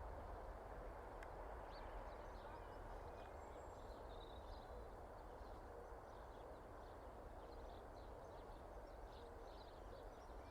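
Quiet outdoor background: a steady low noise with faint, scattered bird chirps throughout.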